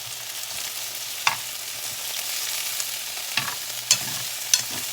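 Thin chicken breasts frying in a pan, a steady sizzle that grows slightly louder, broken by four sharp clicks or pops.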